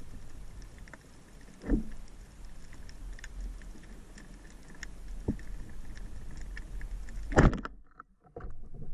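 Water sloshing with a few knocks, the loudest about seven and a half seconds in, after which the sound drops out abruptly for about a second.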